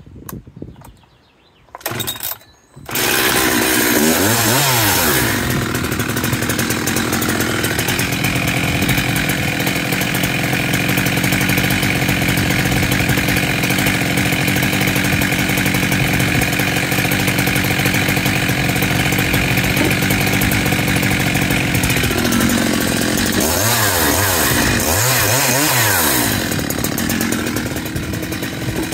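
Husqvarna 372XP big-bore two-stroke chainsaw, fitted with a higher-compression 272XP pop-up piston, being pull-started: after a couple of short pulls it catches about three seconds in and is revved once. It then idles steadily, and near the end it is revved in two quick blips.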